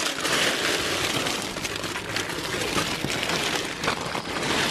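Clear plastic bags of squishy toys crinkling and rustling as hands rummage through them.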